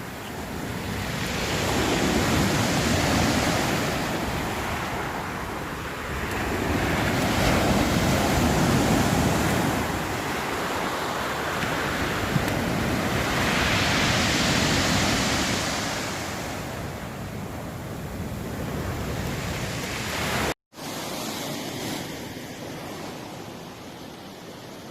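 Sea waves breaking and washing on the shore, swelling and fading in long surges every five or six seconds. The sound drops out for an instant about three-quarters of the way through, and the surf is quieter after it.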